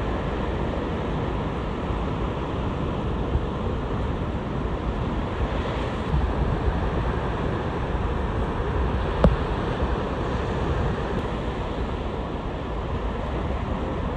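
Ocean surf breaking and washing in along the shore, a steady rushing noise, with wind buffeting the microphone. A single sharp click about nine seconds in.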